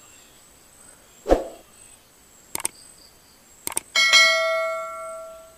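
Subscribe-button sound effect: two pairs of mouse clicks, then a notification bell chime that rings and fades away over about a second and a half. A single dull knock comes just over a second in.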